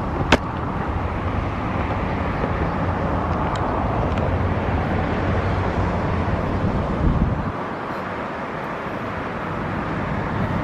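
Street ambience of road traffic on a wide city road: a steady rumbling hiss whose low rumble drops away about three-quarters of the way through, with a sharp click just after the start.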